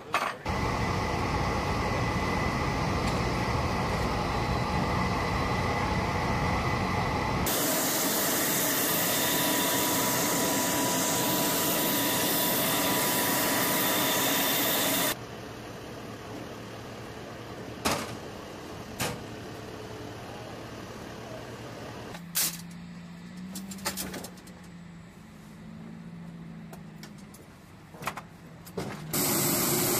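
Navy MH-60S helicopters' turbine engines and rotors running on the flight line: a loud steady rumble, then a steady high hiss. About halfway it drops to a much quieter stretch with a few sharp knocks and clanks of gear being handled, and the loud turbine noise returns just before the end.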